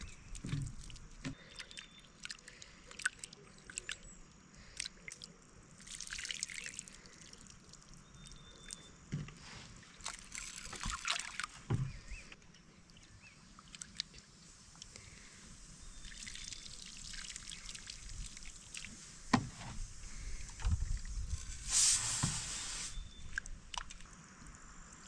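Water being poured and sloshed during kitchen work, in several short spells with the longest about 22 seconds in, among scattered clicks and knocks of utensils.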